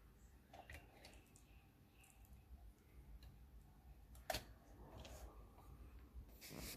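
Faint, sparse mechanical clicks and ticks from the Sony CD changer's disc-handling mechanism, with one sharper click about four seconds in.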